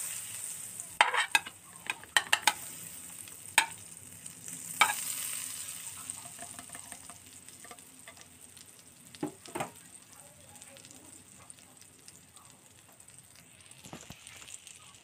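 Butter sizzling as it melts and foams in a hot pan, the sizzle slowly dying down. A metal spatula clacks and scrapes against the pan several times in the first five seconds, with two softer knocks a little after nine seconds.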